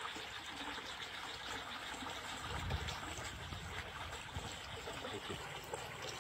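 Water running steadily through a small channel, churning white where it flows.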